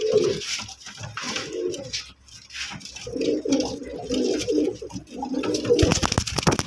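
Tournament pigeons cooing in a wooden loft nest box, repeated low throaty coos, with a short burst of wing-flapping clatter near the end.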